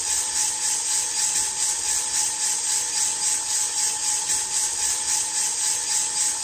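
Aillio Bullet drum coffee roaster running mid-roast: coffee beans tumbling in the rotating drum make a steady, rhythmically pulsing rushing hiss, with a thin steady whine from the machine underneath.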